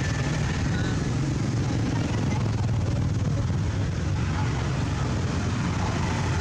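Steady low rumble of outdoor background noise, even in level throughout, with a faint brief high squeak about a second in.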